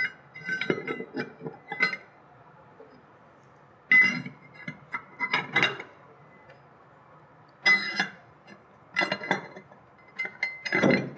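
Steel jaws of a torque-activated core chuck clinking against the metal jaw retainer as they are fitted back in by hand: several short clusters of sharp metal clinks with quiet gaps between.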